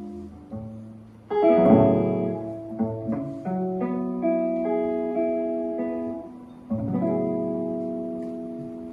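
Guitar and grand piano play the closing bars of a slow jazz ballad, a few struck chords and single notes with no singing. A last chord is struck about seven seconds in and is left to ring and fade.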